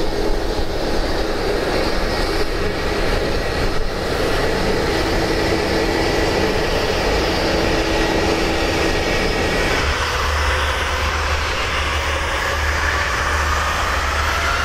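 Airbus A321-231's IAE V2500 turbofan engines running with a steady broad rush. About ten seconds in, the sound shifts to a deeper rumble and a whine begins to rise in pitch as the engines spool up.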